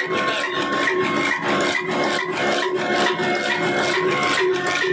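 Old black flywheel diesel engine running and driving an atta chakki flour mill by a flat belt. It makes a fast, even beat with grinding and rubbing noise and a steady whine over it.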